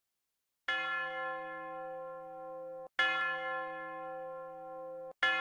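A bell tolling, struck three times about two seconds apart, the first under a second in; each ring hangs on steadily and is cut off abruptly just before the next strike.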